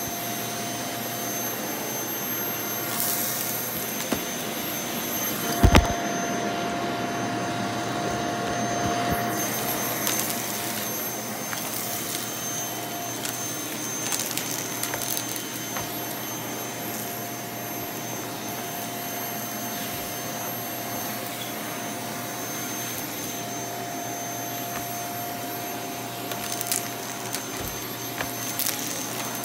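Vacuum cleaner running steadily with a motor whine as its wand and floor head are pushed over carpet. There is a sharp knock about six seconds in and a few lighter clicks near the end.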